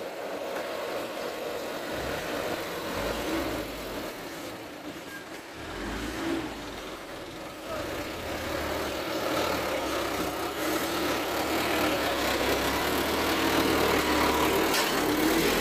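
Diesel engine of a loaded light dump truck running at low speed as it drives over dirt toward and past, getting louder through the second half.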